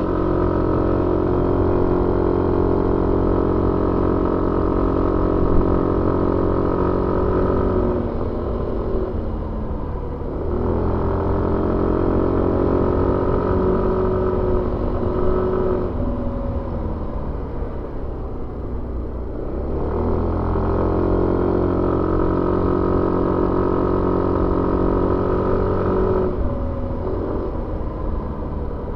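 Suzuki Avenis 125 scooter's engine heard on board while riding, with wind noise. It holds steady revs under throttle, then the throttle is eased off three times and the note falls away and drops in pitch before picking up again.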